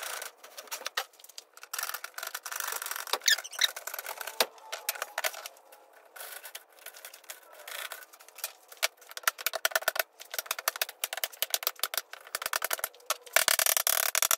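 Aviation tin snips cutting galvanized welded wire mesh: a long series of short, sharp snips and clicks as each wire is cut, with the loose mesh rattling. The snips come faster and closer together toward the end.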